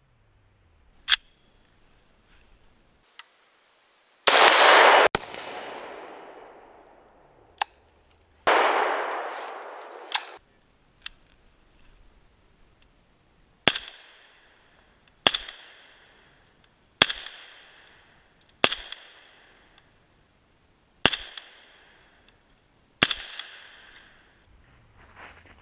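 Arsenal SLR-104FR semi-automatic 5.45x39mm rifle fired one shot at a time, each crack followed by a ringing echo. About four and eight seconds in come two much louder blasts with long tails. The later shots come steadily, one every one to two seconds.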